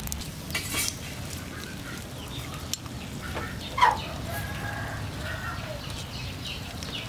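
Chickens clucking, with one loud call about four seconds in and a few shorter calls after it.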